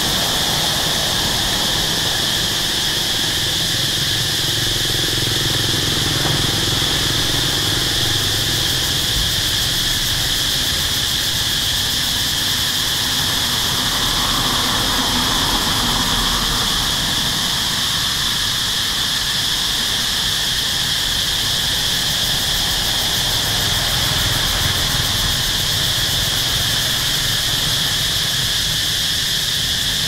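Steady, high-pitched insect chorus that the uploader calls locusts, buzzing without a break, over a low rumble.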